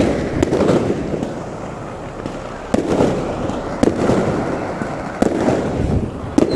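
Daytime fireworks going off: about eight sharp bangs at uneven intervals, each trailing off.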